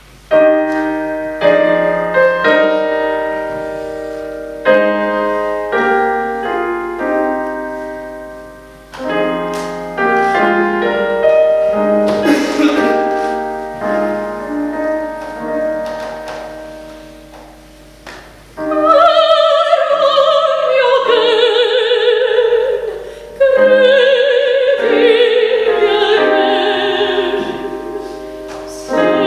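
Roland digital piano playing a slow introduction of struck chords that ring and fade, then about two-thirds of the way through a woman's solo voice comes in, singing with a strong vibrato over the piano accompaniment.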